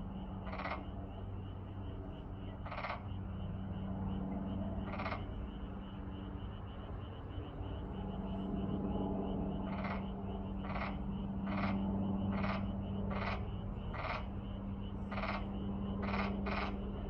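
A chorus of frogs calling: a steady low drone with a steady high band above it, and short harsh calls that come a few seconds apart at first, then about one a second from ten seconds in.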